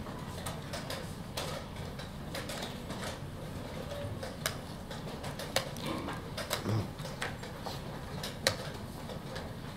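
Wooden chess pieces set down on the board and a chess clock's button pressed: a handful of sharp clicks and knocks, the loudest near the end, over a steady murmur of the playing hall.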